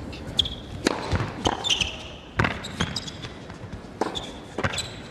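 Tennis rally on an indoor hard court: a string of sharp racquet strikes and ball bounces, with short high squeaks of shoes on the court between them.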